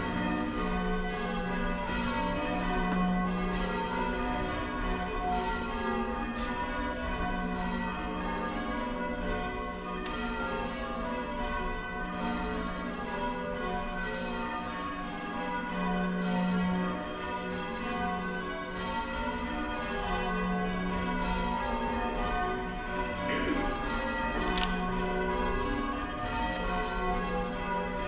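Church bells rung by a band of ringers pulling the ropes in change ringing. The bells strike one after another in a continuous, overlapping round, each note ringing on.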